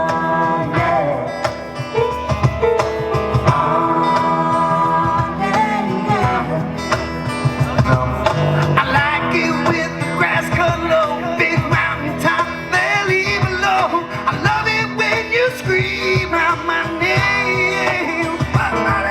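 Live rock band playing over a loud PA, with electric guitar and a steady beat.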